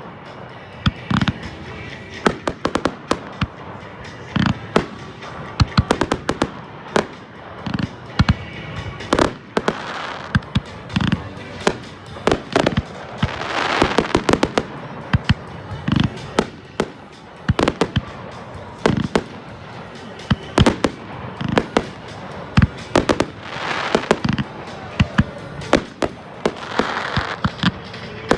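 Fireworks display: aerial shells bursting in quick succession, many sharp bangs and cracks, with two longer stretches of hiss about halfway and about three-quarters through, over background music.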